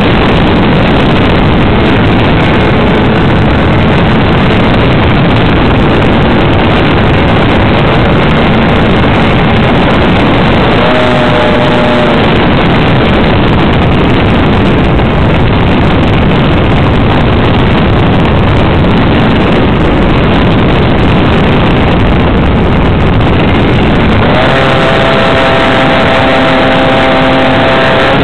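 Radio-controlled model Sopwith Camel in flight, heard from its onboard camera: a loud, harsh, even rush of engine, propeller and airflow noise. A steady engine hum shows through briefly about eleven seconds in and more plainly over the last four seconds.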